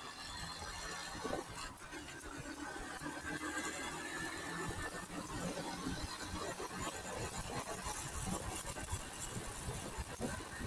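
A vehicle driving along a paved road: steady road and wind noise with a faint engine hum and irregular low rumbles from wind.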